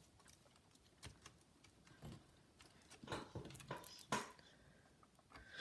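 Faint, scattered clicks and taps, about five of them spread over a few seconds, as the plastic parts of a laptop's display assembly are handled during reassembly.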